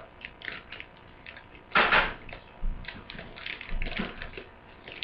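Scissors snipping plastic blister packaging and the plastic crinkling as parts are cut free, in a series of short clicks and rustles, with one louder crackle about two seconds in.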